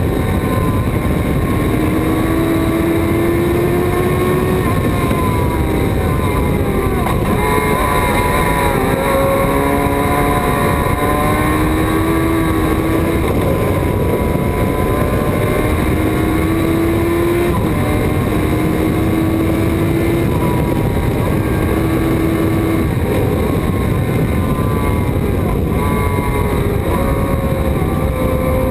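Onboard sound of a Thunder Roadster open-cockpit race car at racing speed. The engine note climbs and drops again several times as the car accelerates, shifts and slows for corners, over heavy wind and road noise.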